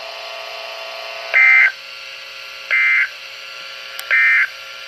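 Emergency Alert System end-of-message code (NNNN) on NOAA Weather Radio: three short bursts of digital data tones, about 1.4 seconds apart, over steady radio hiss. The bursts signal the end of the Required Weekly Test.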